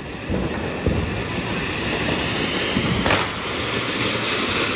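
Two ground fountain fireworks (anar flower pots) spraying sparks with a steady rushing hiss that gets stronger about two seconds in. A couple of sharp cracks come through it, about a second in and near three seconds.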